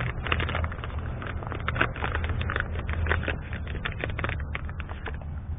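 Irregular crackling and rustling of packaging being handled and sorted, over a steady low rumble.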